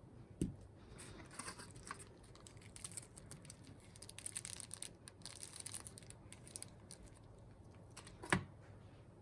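Handling noise: scattered light clicks and rustling, with a sharp knock about half a second in and a louder one near the end.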